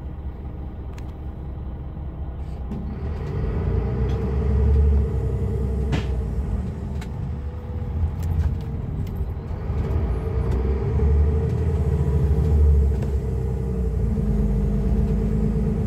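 Temsa Safari HD coach heard from inside the passenger cabin while under way: a low engine rumble with a steady whine over it, both growing louder about three seconds in. A single sharp click sounds near the middle.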